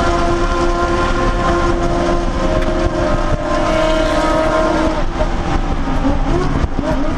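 Audi S3 race car's turbocharged four-cylinder engine, heard from inside the cockpit, running at a steady pitch under sustained load; about five seconds in the pitch drops, then climbs again near the end.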